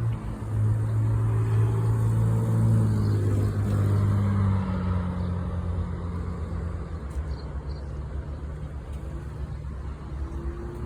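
A car engine running close by, louder for the first few seconds with a slight change in pitch, then easing to a lower steady hum.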